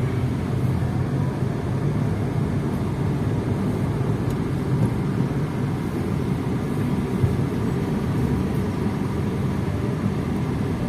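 A car driving along: a steady rumble of engine and road noise.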